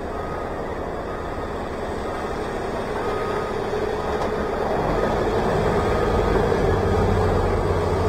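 Engine of heavy machinery running steadily, growing louder about five seconds in.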